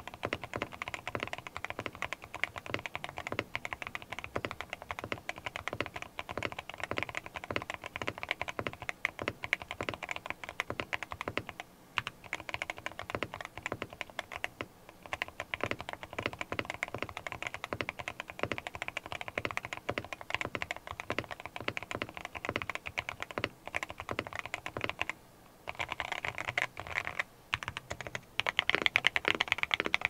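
Fast typing on a Neo 70 mechanical keyboard with Krytox Wandering Earth keycaps and Akko Dracula linear switches, giving a deeper, mixed key sound. After a brief pause near the end, louder typing follows on Akko Botany linear switches, which have a higher-pitched, crisper clack.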